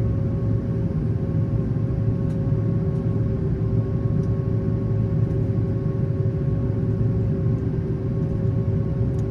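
Steady drone of an airliner cabin in flight: a constant low rumble with a few steady hum tones over it.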